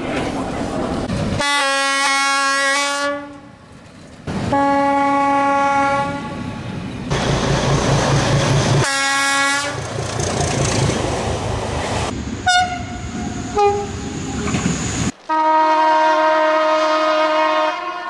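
Train horns from several trains, edited one after another. The ČSD T 478.1 diesel locomotive T 478.1146 sounds two long blasts over its running engine. A passing train gives a shorter blast over engine and rail noise, then come two brief higher toots, and near the end a long blast from another train.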